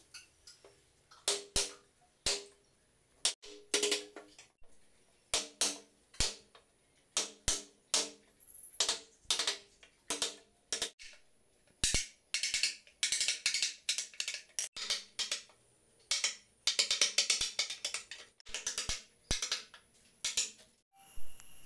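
A chisel driven by repeated strikes, chopping a hinge mortise into the edge of a wooden door. Sharp knocks in irregular runs, some ringing briefly, with faster flurries of strikes about halfway and again toward the end.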